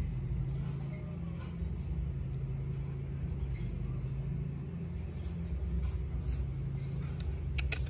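Engine of tree-cutting machinery running steadily as a low, unchanging drone in the background, with a couple of light clicks near the end.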